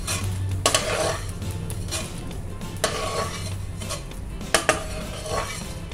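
Metal perforated spatula scraping and clinking against a karahi while fried, puffed edible gum (gond) is scooped out of hot ghee, with a few sharp knocks of metal on the pan, the loudest about four and a half seconds in, over a low frying sizzle.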